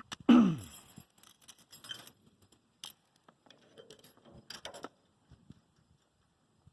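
Small metal chain and lynch pins jingling and clicking as they are handled, in scattered clinks and rattles that die away about five seconds in. At the start comes a short, loud vocal sound falling in pitch.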